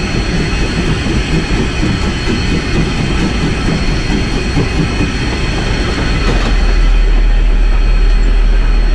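Rio Grande Southern No. 20, an 1899 4-6-0 Ten Wheeler steam locomotive, running with its train, heard from the cab: a steady rumble and clatter of the working engine, growing louder and deeper about two thirds of the way in.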